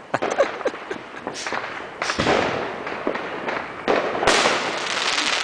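Fireworks and firecrackers going off all around: a rapid scatter of pops and cracks. A sustained crackle starts about two seconds in, and a louder, denser burst of crackling comes near the end.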